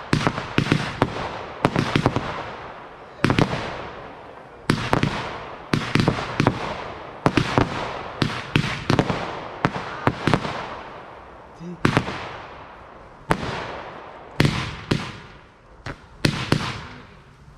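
Fireworks going off in a rapid, irregular barrage of sharp bangs, one to three a second, each trailing off in a fading echo.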